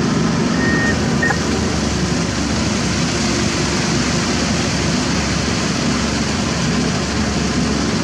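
Komatsu PC195LC hydraulic excavator's diesel engine running steadily while the arm is working.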